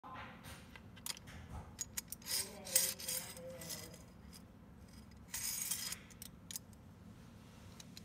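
Aluminium sliding-door roller assemblies being handled on a tabletop: scattered clicks and clinks of the metal brackets, bolts and nylon-wheeled carriages knocking together, with a few short rubbing, scraping sounds.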